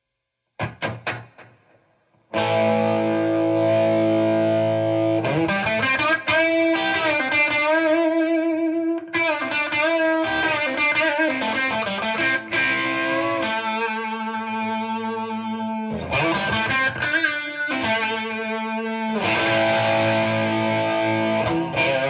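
Distorted electric guitar: a Gibson Les Paul 1959 reissue with no pedals, played through a cranked, jumped 1972 Marshall Model 1986 50-watt Bass head into a Marshall 4x12 cabinet with G12 Vintage speakers. A few short picked stabs come first, then a held chord about two seconds in. Lead lines with bends and vibrato follow, and another ringing chord comes near the end.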